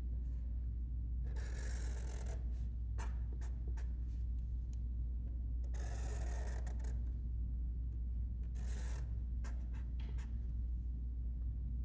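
Permanent marker drawing on paper: three scratchy strokes of about a second each, with small taps between, over a steady low hum.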